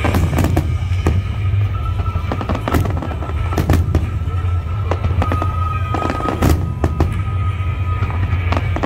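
Fireworks display: aerial shells bursting one after another, many sharp bangs and crackles in quick succession over a steady low rumble.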